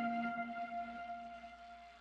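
The last held notes of a lofi music track ring out and fade away to silence.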